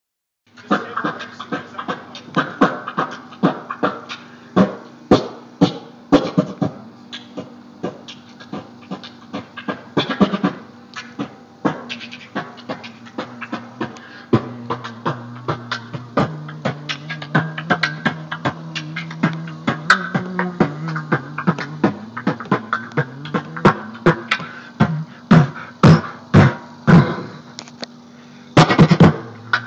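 Beatboxing into a microphone for a sound check: a fast run of sharp percussive mouth hits over a sustained hummed bass line whose pitch shifts several times.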